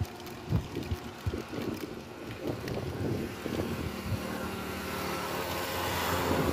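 A drink being shaken hard in a steel shaker, its contents knocking and sloshing in irregular thuds, over a steady low hum.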